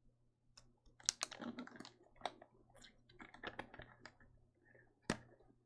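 Faint typing on a computer keyboard: irregular runs of keystrokes, with one sharper click near the end.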